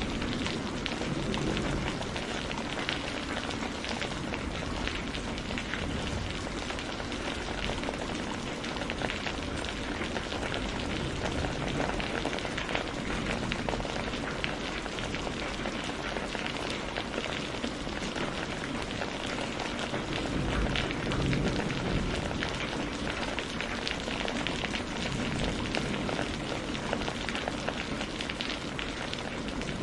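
Steady rain falling, a dense patter of drops hitting a surface, with a brief low swell about two-thirds of the way in.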